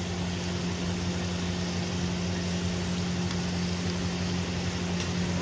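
Spiced tomato-onion masala frying and sizzling in a pan, over a steady low mechanical hum.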